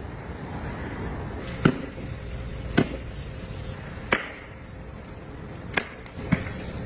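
Chopping blows of a wooden-handled chopper into a large slab of raw red meat on a wet concrete floor: five sharp strikes, about a second or so apart.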